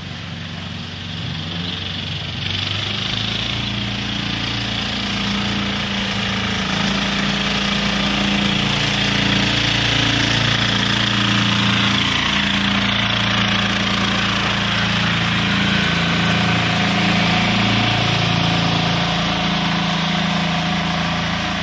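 John Deere 300 garden tractor's 10 hp diesel engine running steadily as the tractor drives up and past, growing louder over the first few seconds as it approaches.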